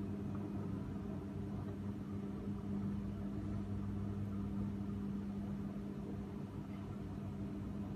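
A machine running with a steady, even-pitched hum that does not change.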